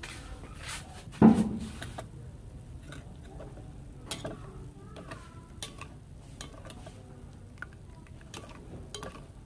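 Scattered light clicks and clinks of hard objects being handled, with one loud thump about a second in.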